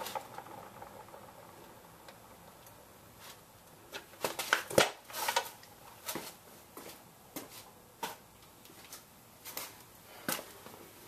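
Scattered light clicks and metal clinks of hand tools being handled, with a short cluster of sharper knocks about four to five seconds in.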